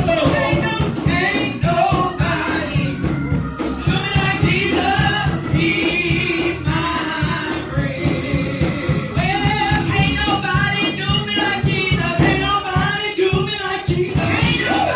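Gospel singing by a group of voices over a band with a steady, driving percussion beat.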